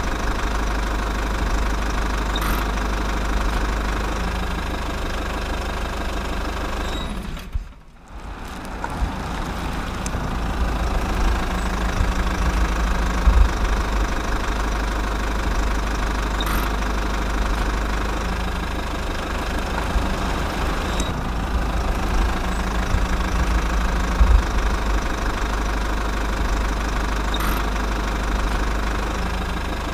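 Car engine running with road and tyre noise, heard from inside the cabin while driving: a steady low rumble with a few brief knocks. The sound drops away briefly about eight seconds in.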